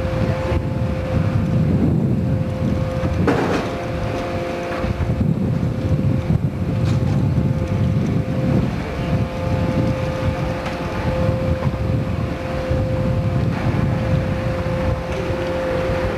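Boat engine running, with wind buffeting the camcorder microphone and a steady thin hum over the rumble.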